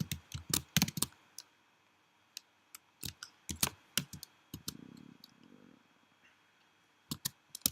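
Keys clicking on a computer keyboard as code is typed, in short irregular runs with pauses between.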